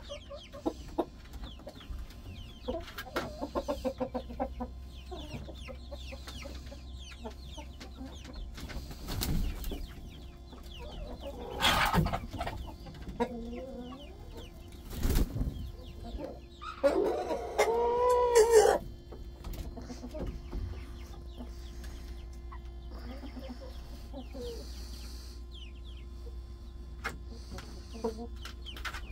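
Chickens settling onto the roost for the night, with soft, scattered clucking and murmuring from the hens and a few sharp knocks. A little past the middle, a rooster crows once, for about two seconds; this is the loudest sound.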